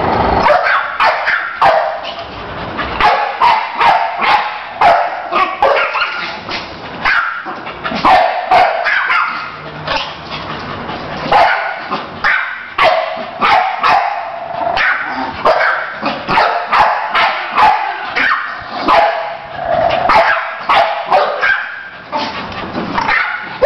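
Two dogs barking and yipping without pause, short high-pitched barks coming several a second, often overlapping.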